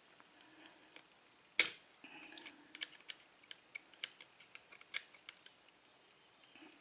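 Metal clicks from a picked pin-tumbler lock cylinder and the tool in its plug being worked by hand while trying to remove the retaining clip: one sharp click about a second and a half in, then a string of lighter, irregular clicks and ticks.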